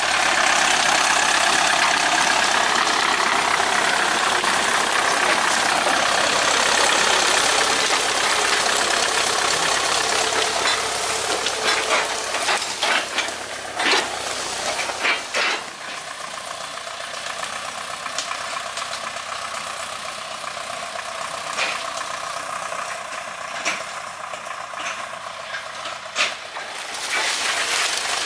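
Ursus C-360 tractor's three-cylinder diesel engine running, loud and close for the first half, then quieter and steadier. Several sharp cracks come midway, as it drives over brush.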